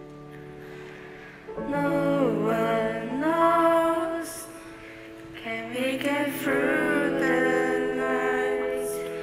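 A song from a stage musical: sustained backing chords, with a singing voice coming in about one and a half seconds in.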